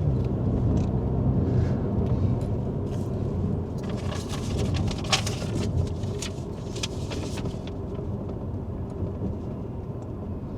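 Alpine A110's mid-mounted 1.8-litre turbocharged four-cylinder engine running steadily under way, with tyre and road noise, gradually getting quieter. A few light clicks come in the middle.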